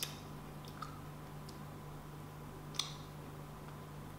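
Faint, wet mouth clicks and smacks from chewing soft sugar-apple flesh: a few scattered clicks, the sharpest a little before three seconds in, over a faint steady low hum.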